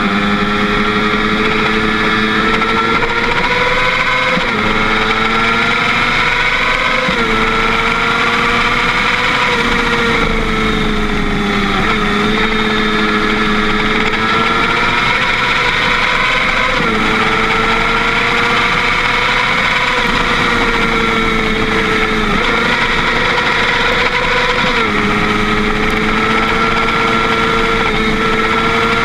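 Motorcycle engine running at road speed, its pitch climbing steadily and then dropping sharply about six times as the rider changes gear and works the throttle through the bends.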